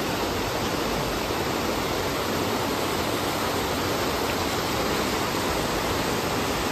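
Fast water of the Buna river rushing steadily, an even noise with no breaks.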